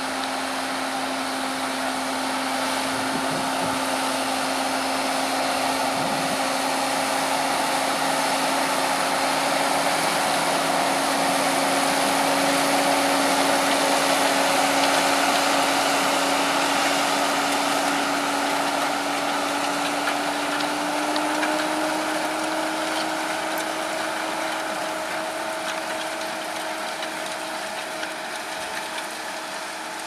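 Fendt 720 Vario tractor's six-cylinder diesel working hard under load while pulling a six-furrow reversible plough through the soil, a steady engine hum that gets louder as the tractor passes by and then fades as it moves away. Its pitch rises slightly about two-thirds of the way through.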